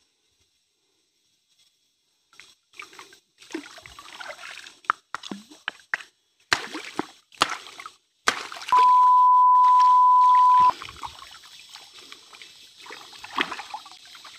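After about two seconds of silence, river water sloshes and splashes around a person wading, with a few sharp knocks. About nine seconds in, a loud steady electronic beep on one pitch sounds for about two seconds over the water.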